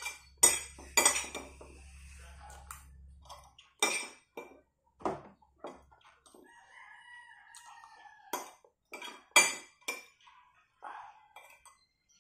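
A spoon clinking and scraping against a ceramic plate while eating, in a scatter of sharp taps. A rooster crows in the background about halfway through, one long call.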